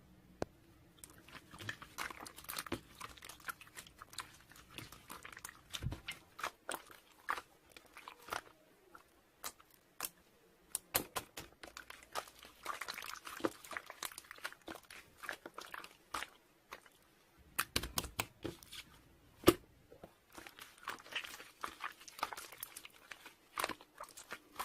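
Irregular crunching and crinkling close to the microphone: many small clicks and crackles coming in clusters.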